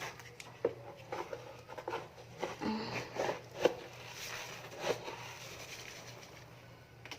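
Cat litter being scooped and shifted: irregular scrapes and gritty clicks of a scoop working through clay litter, with one sharper knock about halfway through.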